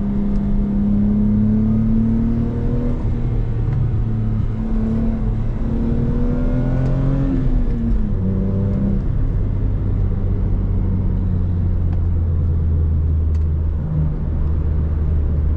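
Lexus IS300's 2JZ-GE inline-six heard from inside the car while driving, revs climbing gradually for about seven seconds, then falling about eight seconds in and settling to a steady lower drone over road rumble.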